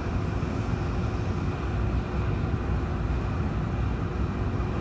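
Steady city background rumble from traffic and construction-site machinery, with a faint constant hum and no distinct events.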